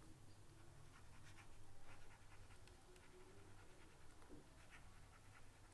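Near silence: faint room hum with scattered faint ticks of a stylus on a writing tablet.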